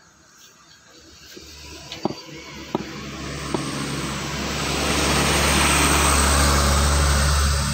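A motor vehicle on the road, its engine hum and tyre noise growing steadily louder over several seconds as it approaches, then holding loud. A few sharp clicks come in the first few seconds.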